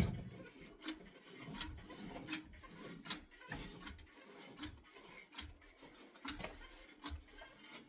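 Caulking gun pumped to lay a bead of construction adhesive, its trigger and ratchet clicking about once every three-quarters of a second.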